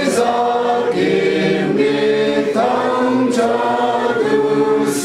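A large group of people singing together in long held notes, changing note every second or so.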